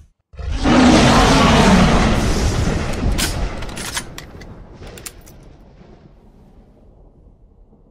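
A sudden loud booming burst that dies away over several seconds, with a few sharp cracks about three to five seconds in.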